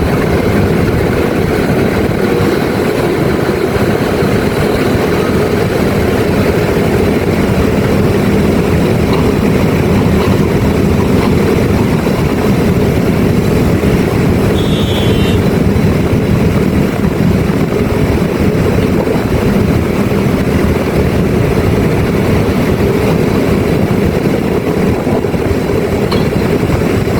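Heavy machinery engine running with a steady drone, with a brief high beep about 15 seconds in.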